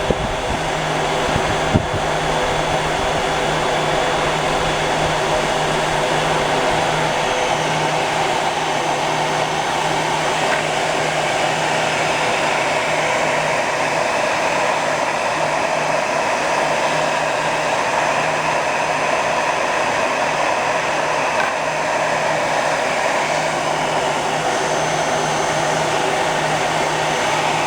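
Heat gun blowing a steady rush of hot air, with a constant motor hum, while shrinking clear heat-shrink tubing down over an airsoft FCU.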